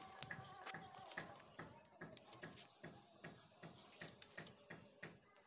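Faint, irregular light clicks and taps from a steel tape measure and plywood sheets being handled.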